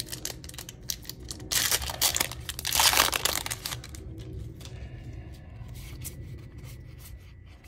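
A Magic: The Gathering collector booster pack's foil wrapper crinkling and tearing open, loudest between about one and a half and three seconds in. Then come softer short clicks and slides as the cards are pulled out and handled.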